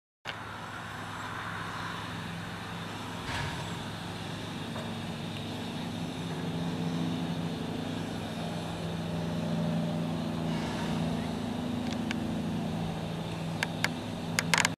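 Steam locomotive standing at a station with its coaches: a steady low hum over a hiss, the hum shifting in pitch a couple of times, with a few sharp clicks near the end.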